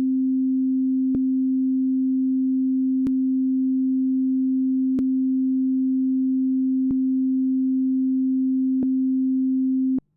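Ableton Live's Operator synthesizer holding a steady sine-wave tone, with a sharp click popping through it about every two seconds. The clicks are an unwanted popping artefact in the synth's output. The tone cuts off suddenly near the end.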